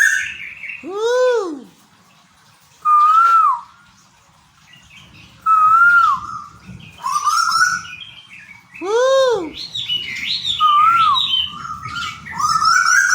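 Asian koel (tuwu) calling repeatedly: short whistled notes that rise and dip, with two louder arching calls about eight seconds apart, and higher chirps mixed in.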